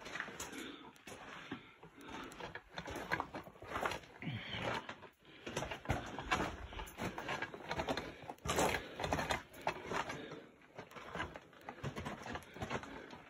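Footsteps crunching and scraping on loose rock and gravel in a mine tunnel, irregular and continuous, mixed with rustling from handling the camera.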